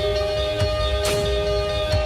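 Music: an instrumental passage with held notes over a steady low beat and a light hit about every half second.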